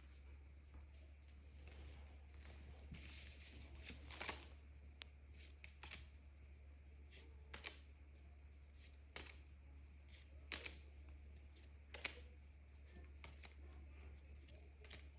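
Soft, irregular clicks and rustles of trading cards being handled and flipped through one by one, over a steady low hum.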